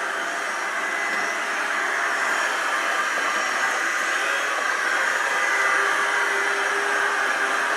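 clever&clean M-series 002 robot vacuum cleaner running: a steady rush of air from its suction fan with a faint whine.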